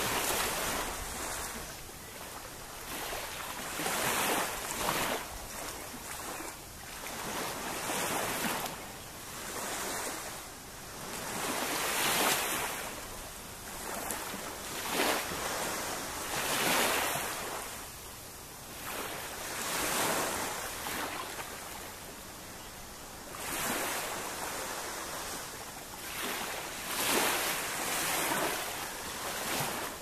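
Small sea waves washing onto a sandy beach, the wash rising and falling every three to four seconds.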